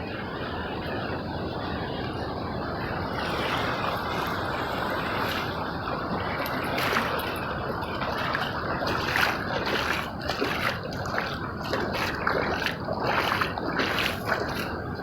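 Sea surf washing on a beach: a steady rush of water, with irregular splashy bursts in the second half.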